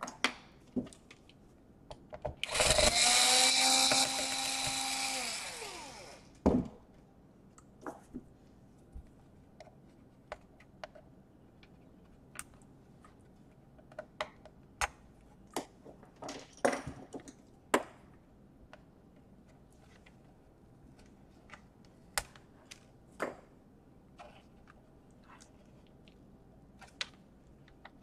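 An electric screwdriver runs for about three seconds, a steady motor whine that slows in pitch as it stops, while a screw is undone in a laptop's bottom case. Scattered small clicks and taps of screws and plastic parts being handled follow.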